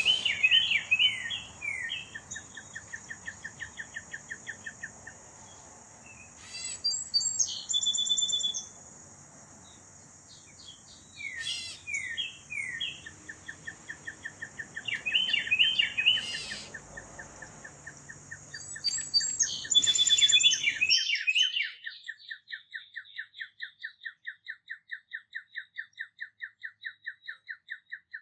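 Songbirds chirping and calling, with several overlapping calls. A rapid, even trill of quick repeated notes, about seven a second, runs through much of it and carries on alone near the end.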